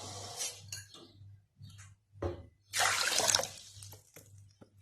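Water poured into a pot of washed red lentils in two short pours, the second starting near the middle, with a few light knocks between them.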